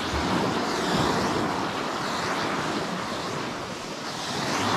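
Small sea waves breaking and washing up a beach, with wind on the microphone. The wash swells about a second in and again near the end.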